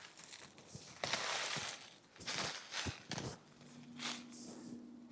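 Footsteps and clothing pushing through dry brush and briars: irregular rustling crunches with a few sharp snaps. A faint steady low hum joins about three and a half seconds in.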